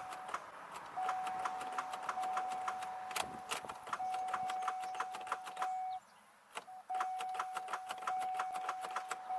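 Starter of a 2002 Chevy Malibu clicking rapidly, several clicks a second, as the key is held in start and the engine does not crank, with a steady electronic tone sounding behind it that drops out a few times; the clicking stops briefly about six seconds in. The owner takes the clicking for a failing starter.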